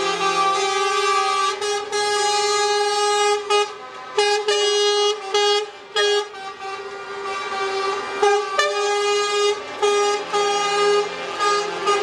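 Lorry air horns sounding from a passing truck convoy, several horns overlapping in long held chords. Between about a third and halfway through they break into short toots before the long notes resume.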